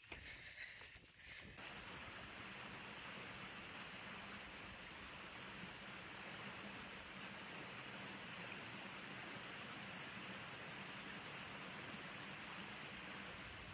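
Steady rushing of flowing water that starts suddenly about a second and a half in, after a few brief sharper sounds.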